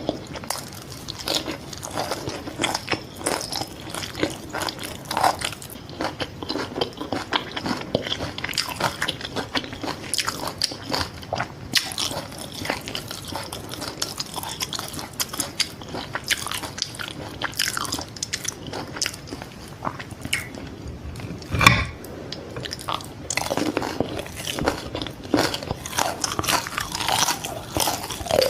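Close-miked chewing and biting of fried fish balls: a steady run of irregular wet clicks and crunches. About two-thirds of the way through comes one louder thump.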